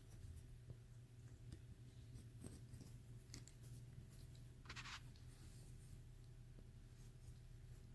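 Near silence with a low hum, broken by faint clicks of small plastic LEGO pieces being handled and one brief scrape about five seconds in.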